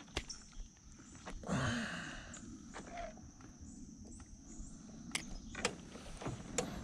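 Faint scattered clicks, knocks and rustling as a freshly caught bream is handled and unhooked in a small boat, with a brief louder rustle about a second and a half in.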